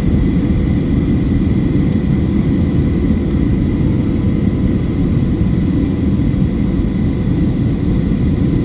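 Boeing 737-800 in flight heard from inside the cabin: a steady deep roar of engines and airflow, with a few faint steady tones above it.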